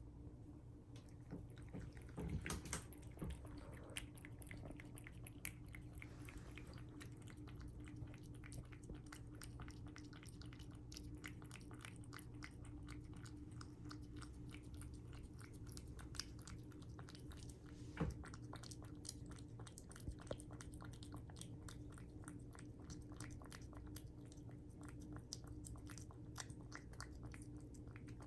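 A cat eating its food: a steady run of small, quick chewing clicks, several a second, with a few louder clicks along the way. A faint steady low hum lies underneath.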